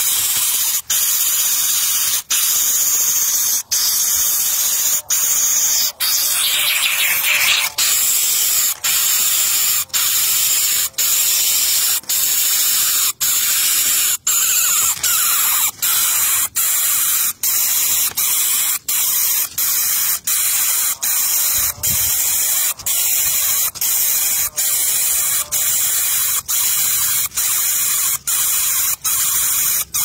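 A pin-feathered nestling hissing loudly and steadily, like escaping steam, breaking off briefly between hisses. The breaks come about every second and a half at first and nearly twice a second later on.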